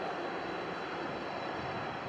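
Jet engines of a four-engine airliner at takeoff thrust, heard from afar as a steady rushing noise with a faint steady high tone running through it.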